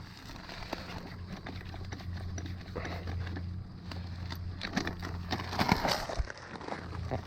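Lug nuts being tightened by hand on a car wheel: scattered clicks and knocks of the wrench, busiest about five to six seconds in, over a steady low hum.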